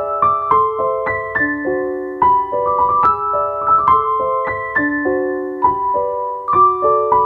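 Background keyboard music: a melody of single notes over chords, with a new note every half second or so.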